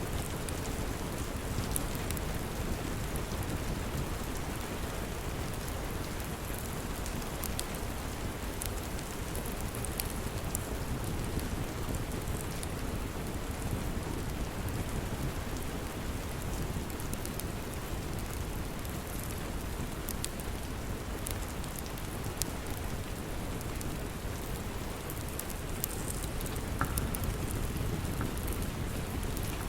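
Steady rain falling, with scattered sharp crackles of a wood fire burning in a fireplace.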